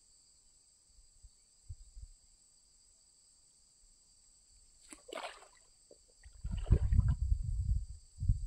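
Cast net swung and thrown, landing in the pond with a short splash about five seconds in. It is followed by loud low rumbling in gusts from about six seconds, like wind buffeting the microphone.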